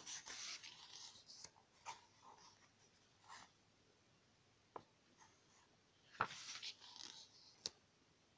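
Glossy photobook pages being turned and handled: two soft rustling swishes of paper, one at the start and one a little past the middle, with a few light clicks and taps in between.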